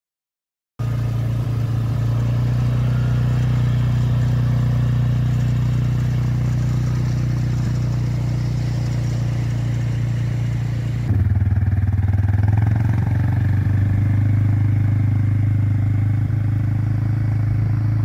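Suzuki KingQuad 500 quad bike's engine running steadily as it drives, starting about a second in. About two thirds of the way through, the steady hum drops slightly in pitch and grows a little louder.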